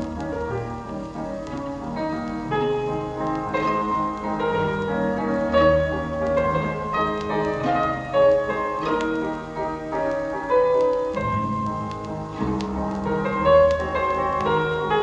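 Piano music with low bass notes, played back through a Dynaco A-35 loudspeaker in a listening test after its crossover network parts were replaced.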